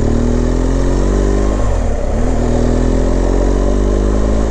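BMW R 1200 GS boxer-twin engine pulling under acceleration, its pitch rising, dropping with an upshift about two seconds in, then rising again. Wind rush runs underneath.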